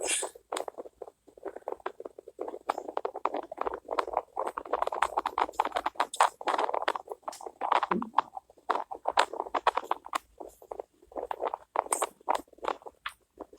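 Dense, irregular rustling and scratching, many quick clicks and scrapes close together, from things being handled and rubbed.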